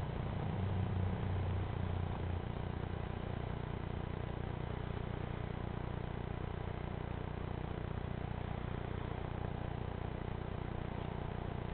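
Steady low rumble with a faint hiss, swelling slightly about a second in, with no distinct events.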